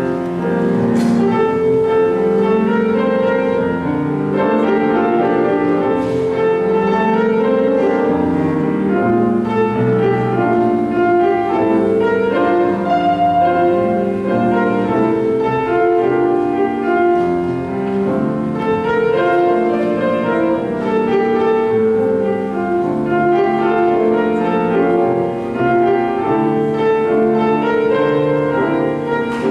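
Piano music played as the offertory, steady and flowing, with notes stepping through a melody over sustained chords.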